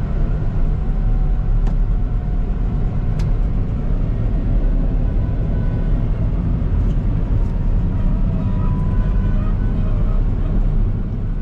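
New Holland CX5090 combine harvester running under way with its corn header engaged: a steady, loud engine and machinery drone with a faint whine above it.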